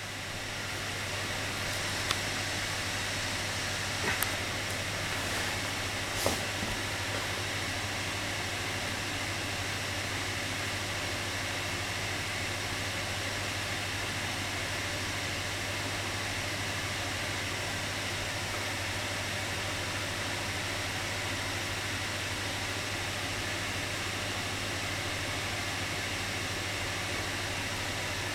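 Microwave oven running while it heats a small cake batter: a steady hum with fan noise and a strong low mains hum. A few light clicks sound in the first several seconds.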